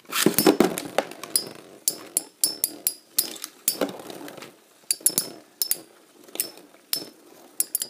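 Two Metal Fight Beyblade spinning tops battling in a plastic stadium: their metal wheels collide and strike the stadium walls in rapid, irregular sharp clicks and knocks. A denser burst of rattling comes in the first second.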